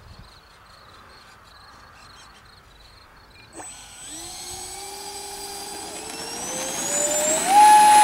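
Twin 50 mm twelve-blade electric ducted fans of a Multiplex Learjet RC jet spooling up for takeoff. After a brief click about three and a half seconds in, a whine rises steadily, then jumps to a loud, steady full-throttle whine about seven and a half seconds in as the jet starts its takeoff roll.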